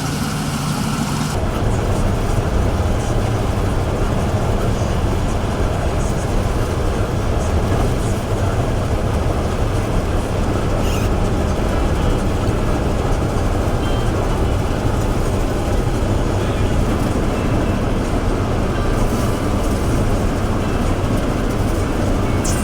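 Heavy harvest machinery running steadily, a dense mechanical rumble with a strong low end. It changes character abruptly about a second in.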